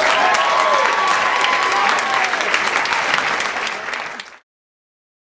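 Concert audience applauding, with a few voices calling out over the clapping. The sound cuts off suddenly a little over four seconds in.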